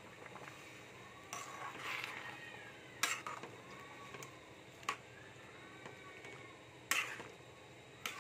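Metal slotted spatula stirring semolina halwa through milk in a steel kadhai, knocking sharply against the pan about five times. A few faint high, rising-and-falling cries sound between the knocks.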